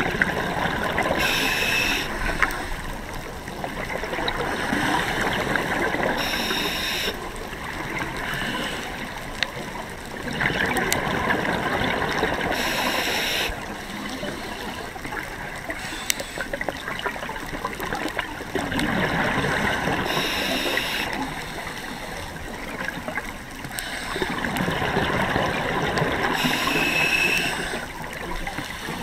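Scuba diver breathing through a regulator underwater: five breath cycles, each a short hiss of inhaling followed by a long rush of gurgling exhaled bubbles, about every six to seven seconds.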